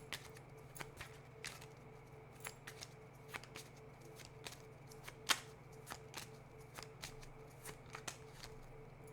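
Tarot cards being handled, giving light irregular clicks and taps, one or two a second with a sharper one about halfway through, over a steady low hum.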